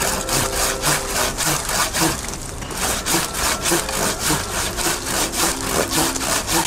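Hand saw cutting through a tree trunk in steady back-and-forth strokes, about three a second.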